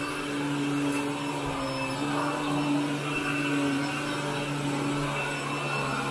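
Upright vacuum cleaner running over carpet while it is pushed back and forth: a steady motor hum over airflow hiss that wavers slightly with each stroke.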